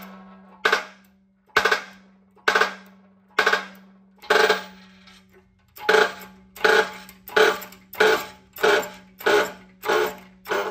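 Shop press being pumped by its lever handle to press two gears off a motorcycle transmission countershaft, with a sharp metallic clack on each stroke that rings briefly. The clacks come about once a second at first, then speed up to about two a second halfway through.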